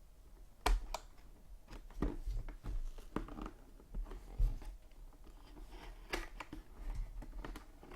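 A mini helmet box and its packaging being handled and opened by hand: scattered sharp clicks and taps with short rustles.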